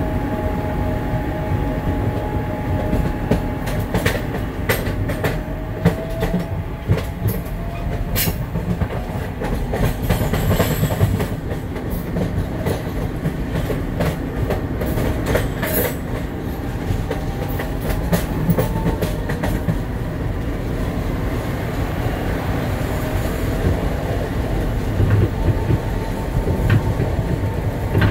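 SEPTA Market-Frankford Line Adtranz subway car running between stations, heard from the end-door vestibule: a steady rumble of wheels on rail under a thin whine that drifts in pitch. Between about 4 and 16 seconds a run of sharp clicks and rattles comes through.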